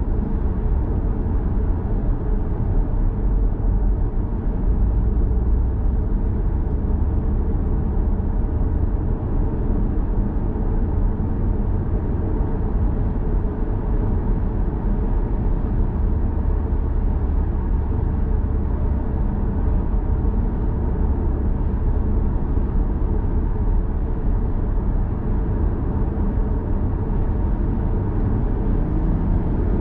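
Steady road and tyre noise from a 2011 Lexus GS450h hybrid sedan driving at road speed: an even, low rumble with no breaks. Faint rising tones come in near the end.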